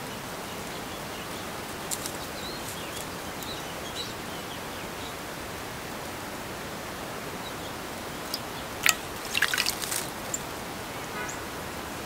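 A small bird splashing in a shallow bird-bath bowl: a few quick splashes and drips clustered about eight to ten seconds in, over a steady outdoor hiss.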